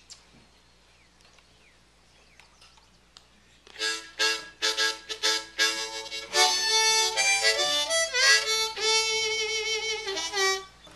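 Harmonica played hands-free from a holder on a mic stand. After about four seconds of near quiet comes a run of short separate blasts, then held chords with a fast warble near the end, stopping just before the end.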